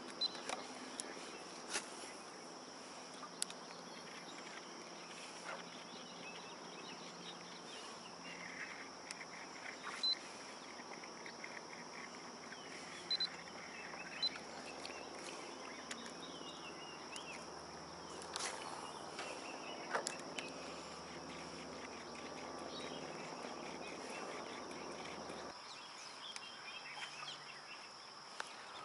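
Quiet outdoor lake ambience: a steady high-pitched insect drone, with scattered small clicks and taps and a faint low hum that cuts off near the end.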